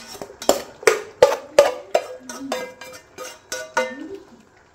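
A frying pan and utensil knocking against a stainless steel stock pot as carrot slices are scraped and tipped into it: about a dozen short metallic knocks, two or three a second, each ringing briefly.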